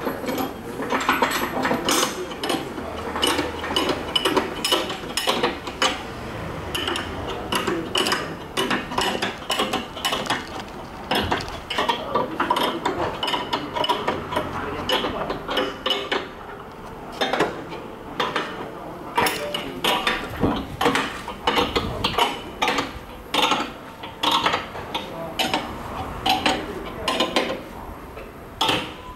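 Metal-on-metal clinking and knocking as aluminium clamp inserts are seated in the jaws of a polyethylene pipe butt fusion machine and the clamp bolts are worked with steel spanners. Many irregular sharp clinks, thinning out for a moment just after the middle.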